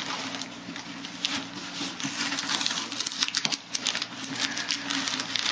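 Paper crinkling and rustling as Christmas wrapping paper is torn off a cardboard gift box and a paper bag is handled: dense small crackles, busiest in the second half.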